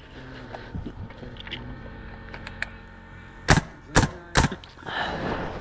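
Three loud, sharp knocks on timber framing in quick succession, about half a second apart, with a few fainter clicks just before them.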